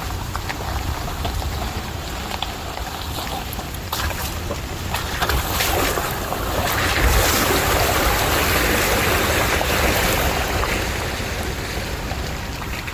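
Steady rushing of waterfall water pouring over rock, growing louder about six seconds in, with low wind rumble on the phone's microphone.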